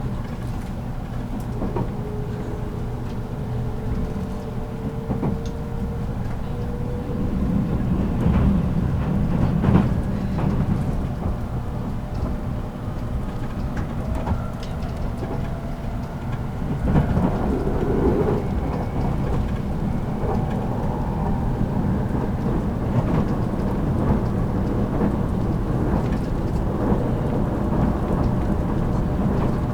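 JR Kyushu 783 series electric train running, heard from aboard motor car MoHa 783-13: a steady rumble of wheels on rail and running gear. Faint whines glide slowly in pitch, with a few knocks.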